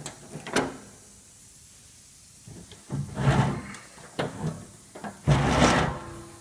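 Metal clicks, then a few scraping rubs and knocks from the lid and locking-arm hardware of a Krantz industrial extractor being handled. The longest and loudest scrape comes about five seconds in.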